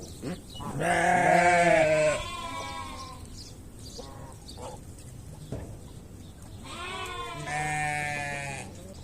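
Sheep bleating: two long, loud, wavering bleats, one about a second in and one near the end, with fainter calls in between.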